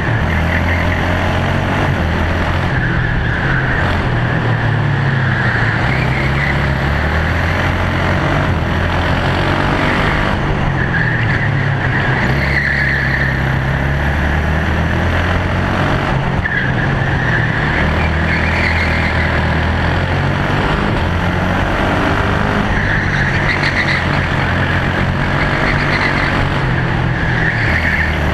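KZ shifter kart's 125cc two-stroke engine running hard at racing pace, its pitch climbing and dropping in steps every few seconds as it works through the gears and corners.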